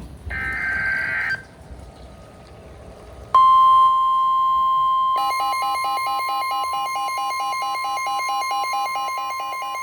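NOAA Weather Radio alert ahead of a tornado warning: a short burst of SAME digital header data, then about three seconds in the steady 1050 Hz warning alarm tone comes on loud. About two seconds later a weather radio receiver's rapid electronic alarm beeping joins the tone.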